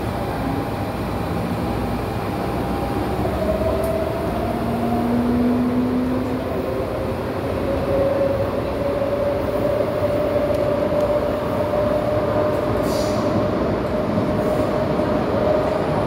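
MTR Tung Chung line A-train heard from inside the car while under way: steady running and wheel rumble with an electric whine. The whine drops in pitch about three seconds in, then rises slowly.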